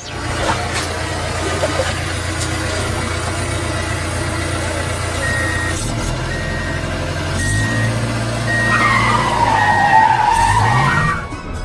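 A motor vehicle's engine running with a steady low drone. From about five seconds in, a short high beep repeats roughly once a second, and near the end a squeal dips in pitch and rises again before everything cuts off.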